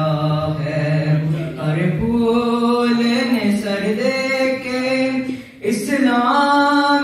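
A boy chanting a noha, a Shia lament, unaccompanied into a microphone, in long held melodic notes, with a short break for breath about five seconds in.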